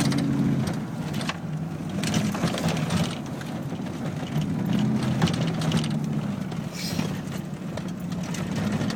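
Car engine and tyre noise heard from inside the cabin while driving, a steady low hum whose pitch rises and falls a little.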